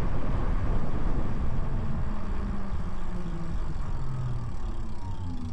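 Wind rumble and road noise on an Insta360 X4 camera's built-in microphone, fitted with wind muffs, while riding an e-bike. The rumble eases gradually, and a faint whine falls in pitch partway through.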